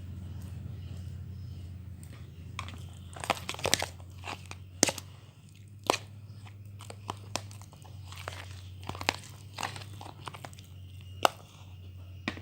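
Homemade glue slime being worked by hand, giving irregular sticky clicks and pops in clusters, with the loudest pop near the end; the slime is still tacky. A steady low hum runs underneath.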